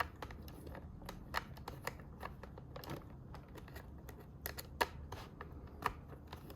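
Light, irregular clicks and taps of screwdrivers working a screw out of the plastic battery housing of a Dyson V8 vacuum.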